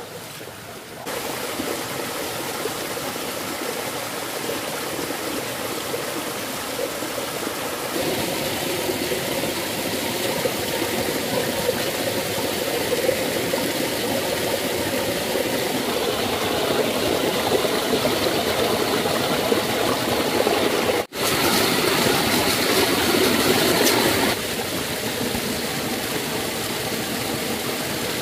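Shallow forest stream flowing over rocks: a steady rush of running water. It steps abruptly louder or softer a few times and drops out for an instant about three-quarters of the way through.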